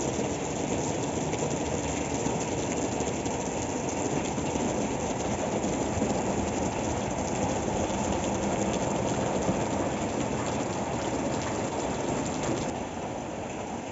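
Heavy rain drumming on corrugated metal roofs, a steady dense patter of many small hits. It drops a little in level near the end.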